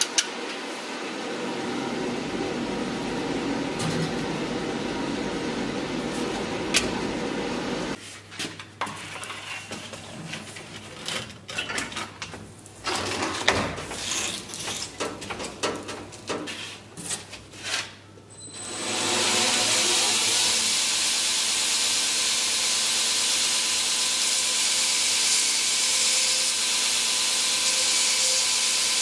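A belt grinder sharpening a steel knife blade. It opens with a steady drone, then about a third of the way in comes a stretch of short, irregular grinding contacts and clicks. From about two-thirds in, the blade held against the running belt gives a steady, bright grinding hiss.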